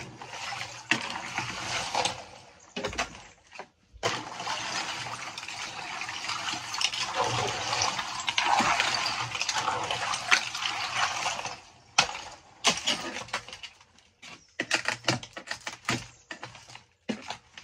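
Icy water sloshing and splashing in a water-filled chest freezer, with ice chunks clinking and knocking together as they are stirred by hand and broken up with a claw hammer. The splashing runs busily for about twelve seconds, then gives way to scattered knocks.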